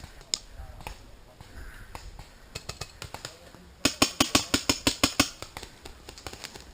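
Paintball markers firing: scattered single pops, then a loud rapid string of shots at about eight a second for two seconds, starting a little past halfway.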